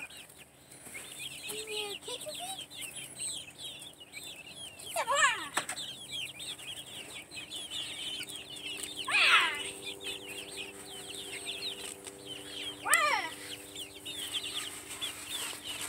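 Young white Leghorn chickens cheeping continuously with many short, quick, falling chirps, and three louder calls about five, nine and thirteen seconds in.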